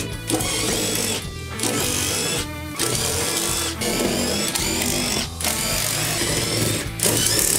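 Power drill run in a series of roughly one-second bursts with short pauses, backing out floor-panel screws in the Cessna 401 cabin, over background music.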